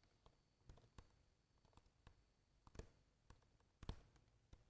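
Faint, irregular clicks of computer keyboard keys being typed, about ten taps spread unevenly over a few seconds.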